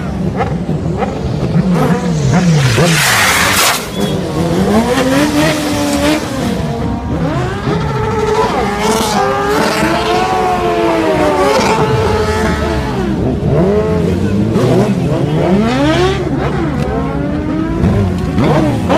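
Several stretched sportbike engines revving up and down over and over as the bikes drift and do burnouts. A burst of tyre screech about three seconds in.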